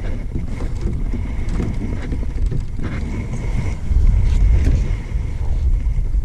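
Wind buffeting the microphone, a steady low rumble with a few faint knocks.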